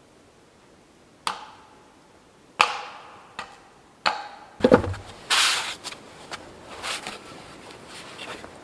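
Sharp knocks on wood, each with a short ringing tail, about one every second and a quarter, then about halfway through a couple of heavy low thuds followed by scraping and rustling as wood is handled.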